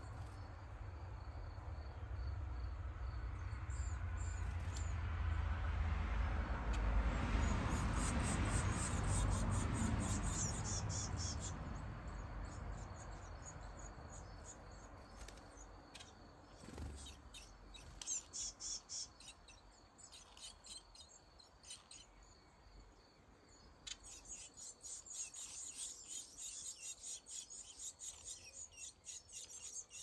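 Blue tit nestlings giving rapid, high-pitched begging calls in bouts, most continuous near the end as the adult feeds them. In the first half a low rushing noise swells and fades, loudest about eight seconds in.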